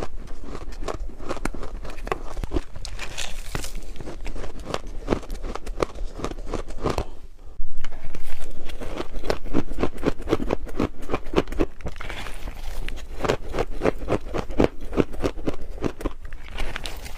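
Ice being bitten and chewed close to the microphone: a dense, irregular run of crisp cracks and crunches. It pauses briefly about halfway through and then starts again louder.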